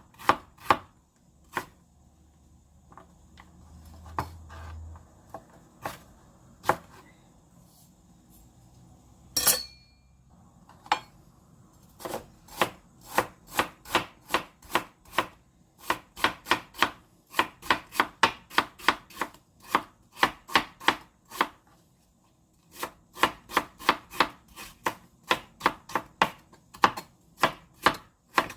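Kitchen knife chopping on a cutting board in a steady rhythm of about two strokes a second, cutting potatoes into thin strips. The chopping breaks off for several seconds early on, with a few scattered knocks, one louder ringing knock, and a soft rustle, then resumes.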